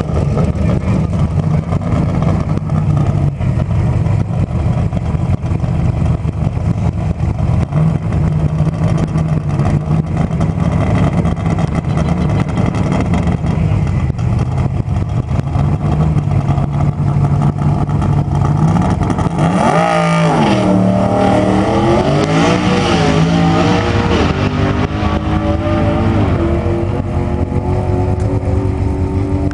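Twin-turbocharged 357-cubic-inch SB2.2 small-block V8 of a Hyundai coupe drag car running loud and steady at the start line. About two-thirds of the way through it launches: the pitch climbs steeply, rises and drops with each gearshift, and fades as the car runs away down the strip.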